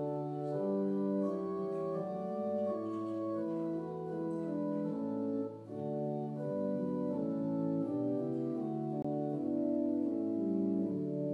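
Organ playing a slow, sustained prelude: held chords that change every second or so, with a short break between phrases about halfway through.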